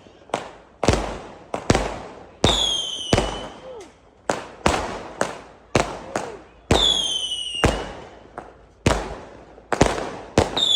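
Aerial fireworks exploding: a rapid run of sharp bangs, roughly one a second, each trailing off in an echoing rumble, with a high whistle gliding down in pitch about every four seconds.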